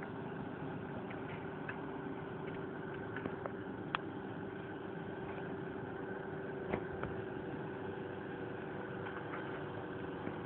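Steady mechanical hum with one constant tone, like a motor running, with a few faint clicks about four and seven seconds in.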